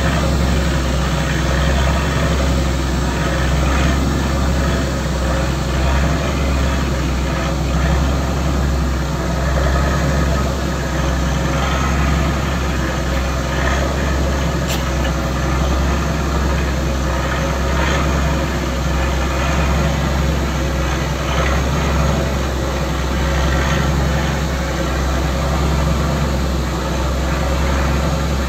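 A boat's engine running with a steady low drone, under a rushing haze of water and wind noise.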